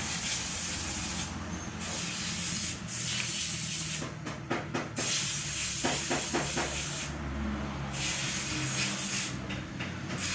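Yamaha Mio Soul i 125 scooter's single-cylinder engine running, under a loud hiss that cuts in and out, with a few short knocks around the middle of the stretch; the engine noise is what the title puts down to piston slap.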